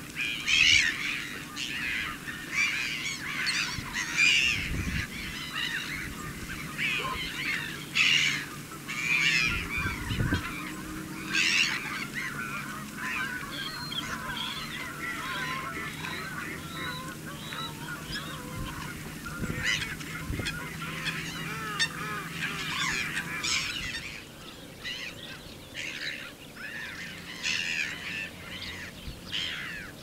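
A flock of wildfowl calling, many overlapping calls with hardly a break, thinning a little near the end. A couple of dull low thumps come through about five and ten seconds in.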